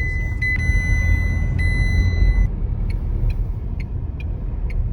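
Rumble of a car cabin on the move. A steady high electronic tone sounds until about halfway through and then stops, after which a turn-signal indicator ticks about twice a second.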